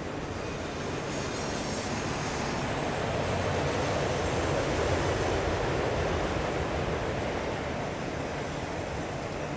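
Freight train of autorack cars rolling past: a steady rumble of wheels on rail, growing a little louder in the middle, with a thin high wheel squeal held through most of it.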